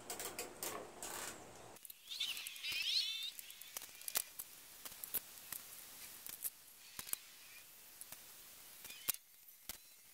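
Nylon zip ties being pulled tight around a PVC pipe frame through wire mesh, making a series of short, sharp ratcheting clicks. A brief high warbling sound comes about two seconds in.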